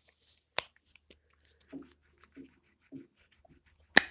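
Silicone pop-it fidget toy being pressed: a few soft pops, with two sharp clicks, one about half a second in and one near the end.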